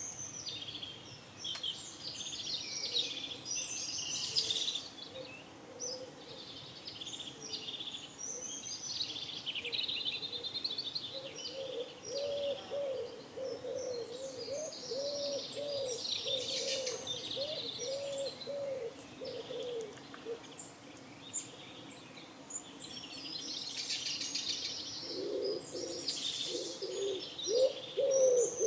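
Small songbirds chirping throughout in quick, high calls, with pigeons cooing. The pigeons give a run of low, rounded coos about twice a second from roughly twelve to twenty seconds in, and again near the end.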